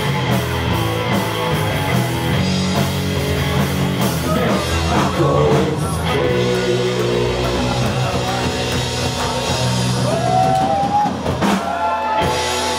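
Live rock band playing loud, with electric guitar, a drum kit and a male lead vocal. The bass and drums drop out about a second before the end.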